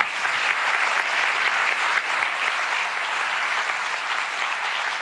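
Large audience applauding steadily at the end of a talk.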